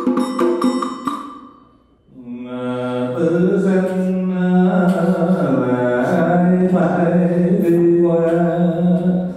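A quick run of strikes on a ringing percussion instrument dies away. About two seconds in, voices begin a slow Buddhist chant in Vietnamese, holding long, drawn-out notes.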